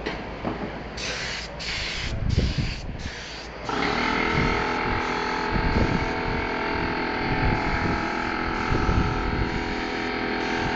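Four short bursts of hissing spray from a spray nozzle, then about four seconds in a machine starts and runs steadily with a hum of several fixed tones over a hiss.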